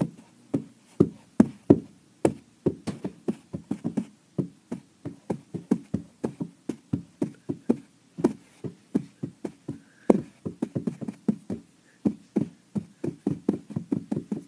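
A rapid, uneven series of dull knocks, about three to five a second, ending near the end.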